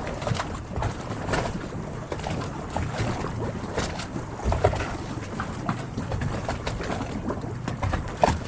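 Harbour water lapping and splashing against moored yachts, with irregular light knocks from the hulls. A few short bird calls sound over it, one near the middle and one near the end.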